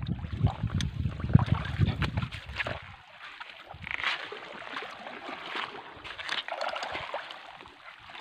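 Shallow seawater sloshing and splashing around rocks and wading feet. Low rumbling buffeting on the microphone for the first three seconds, then only the water.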